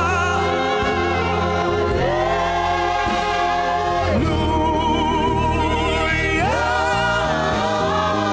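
Worship music: sustained sung notes with vibrato, sliding between pitches, over a steady bass accompaniment.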